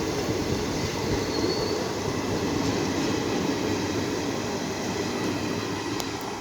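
Passenger train running past, with a steady rumble of wheels on the rails that fades slightly toward the end.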